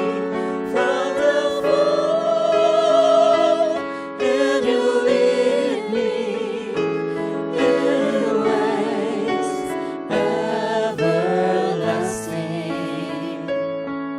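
Slow worship song: voices singing long, wavering notes over a keyboard accompaniment. Near the end the voices drop out and the keyboard carries on alone.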